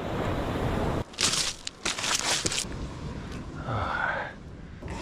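Rustling and crinkling, loudest in a cluster of crackly bursts between about one and two and a half seconds in, over a steady background hiss.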